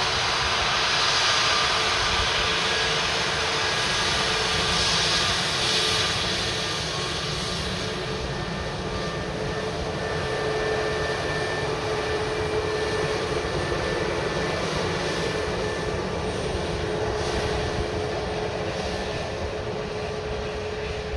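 Airbus A321 turbofan engines at low taxi power: a steady whine with a few held tones over a broad rushing hiss. Loudest in the first few seconds, then easing slightly as the jet moves away.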